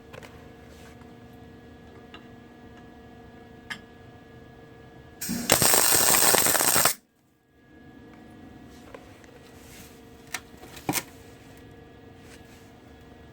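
MIG welder laying a tack weld: one loud crackling burst of about a second and a half, about five seconds in. A few sharp clicks follow near the end, over a faint steady hum.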